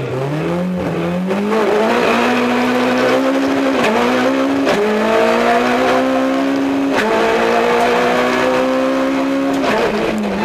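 Peugeot 106 XSi rally car's four-cylinder engine heard from inside the cabin, accelerating hard. The pitch climbs and drops sharply at each gear change, about five times.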